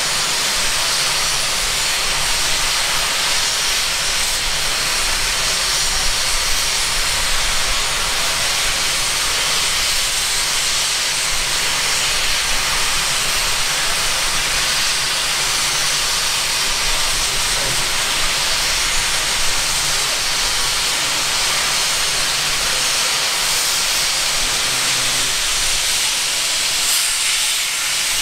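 K class steam locomotive letting off steam in a loud, steady hiss that goes on without a break.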